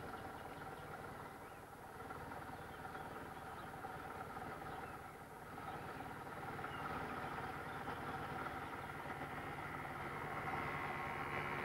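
A motor vehicle engine running steadily, growing louder through the second half as a vehicle comes closer.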